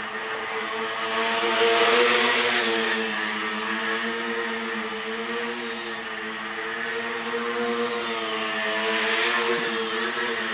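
An RC tricopter's three electric motors and propellers running in flight, a steady hum with a high whine whose pitch wavers slightly as it manoeuvres. It grows louder about two seconds in and again near the end, as it comes closer.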